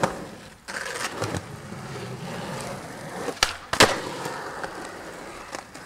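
Skateboard wheels rolling on concrete with a steady grinding hiss, broken by two sharp clacks of the board about half a second apart a little past halfway, the second the loudest.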